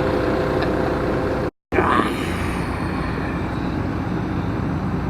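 Diesel engine of a tracked excavator running steadily, cut off briefly by a short gap of silence about a second and a half in before steady machine noise resumes.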